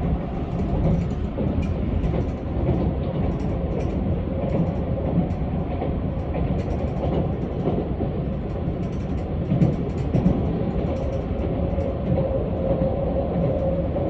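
Keisei AE-series electric train running at speed, heard from inside the car: a steady rolling rumble with a faint steady tone and light clicks from the wheels on the track.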